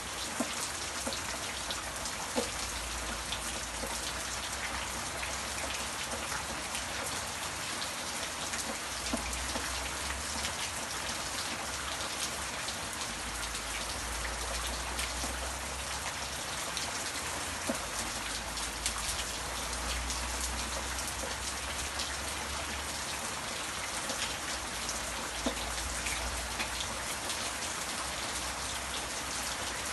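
Steady rain falling, the noise of the downpour dotted with many separate sharp drop ticks. A low rumble comes and goes underneath it.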